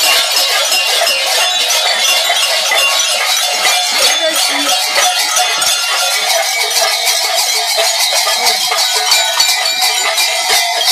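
Bells worn by masked, fur-costumed figures clanging and jangling continuously as they move, a dense clatter of metal strokes.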